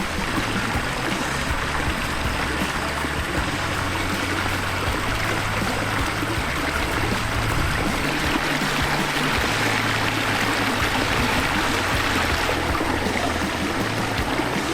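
Water rushing and splashing steadily down the newly built pond's rock stream and waterfall.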